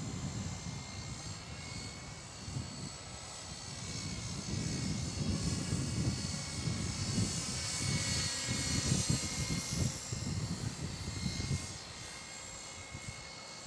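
Align T-Rex 250 electric mini RC helicopter in flight: a high-pitched whine of its brushless motor and spinning rotors, bending slightly in pitch as it moves about. Under it is a gusty low rumble that fades near the end.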